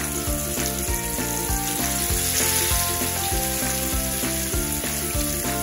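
Hot oil sizzling steadily as masala-coated fish steaks shallow-fry in a non-stick pan, more pieces going into the oil. Soft background music with a regular beat plays underneath.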